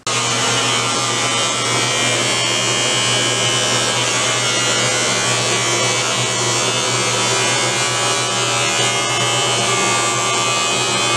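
Electric beard trimmer running with a steady buzz as it trims a full beard.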